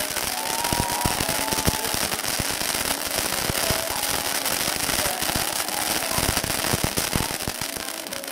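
Pyrotechnic spark fountains hissing, with a dense crackle of many sharp pops.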